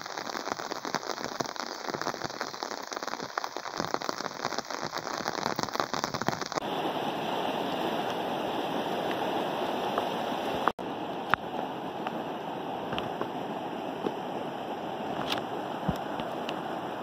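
Rain pattering on the surface of a swollen creek. About six and a half seconds in, this gives way to the steady rush of a river in flood pouring over rocks, with a few sharp clicks over it.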